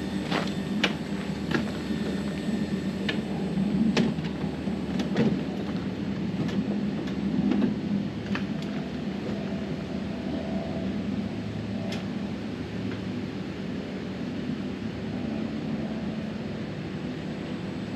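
Steady mechanical hum of a running heat pump, with scattered clicks and knocks of hand work on the unit, most of them in the first half.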